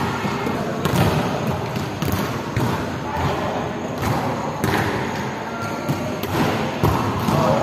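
A volleyball being bumped and set by players, several thuds about a second apart that echo in a large indoor sports hall.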